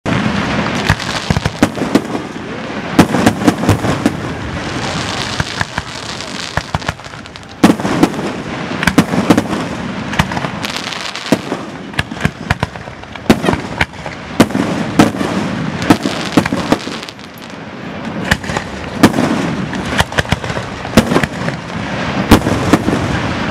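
Fireworks finale: aerial shells launching and bursting in rapid, overlapping succession, many sharp bangs with crackle and hiss between them.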